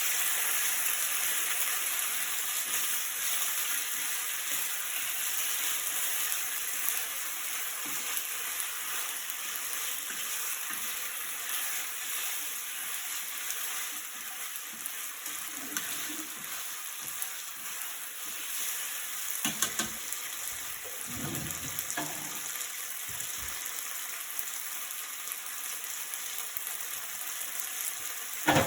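Food sizzling steadily in a frying pan while being stirred, with a few sharp knocks of a utensil against the pan, the loudest near the end.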